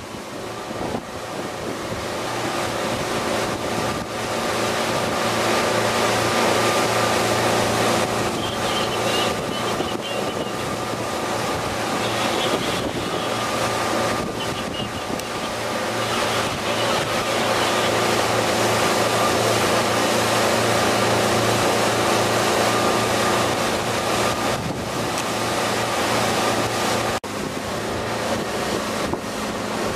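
A steady engine drone with wind rushing across the microphone. It grows louder over the first few seconds and holds steady, with a brief sudden drop near the end.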